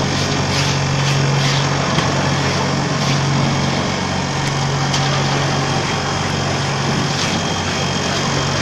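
Electric vibrator table for precast concrete paver moulds running with a steady low hum, shaking plastic moulds of wet concrete to compact the mix, with a few light clicks and knocks from the moulds on the steel table top.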